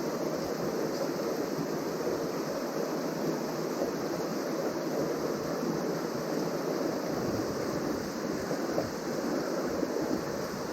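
Steady rush of a mountain trout stream's water running over rocks.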